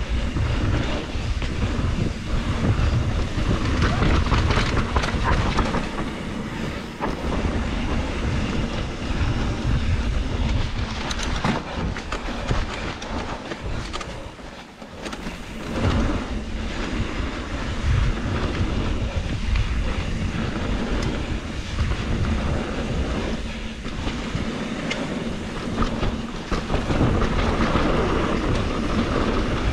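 2021 Trek Slash 7 mountain bike running fast down a dirt flow trail: tyre roar on dirt with the chain and frame clattering over a steady low rumble, briefly quieter about fifteen seconds in.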